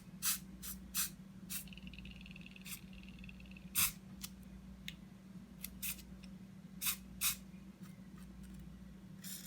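Aerosol spray paint can released in short, irregular spurts, dabbing on dots of black paint, over a steady low hum.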